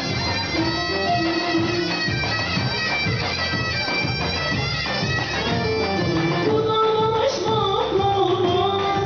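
Live Turkish dance music from a band with a lead melody line over a steady drum beat. About two-thirds of the way through, a new wavering melody line comes in above it.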